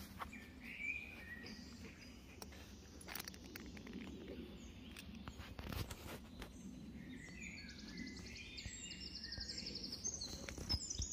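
Small birds chirping and trilling, faint, with a few quick rapid trills and scattered soft clicks.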